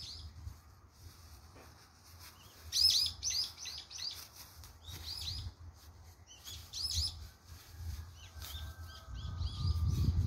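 Birds chirping in several quick series of short, high chirps, over a low steady rumble that grows louder near the end.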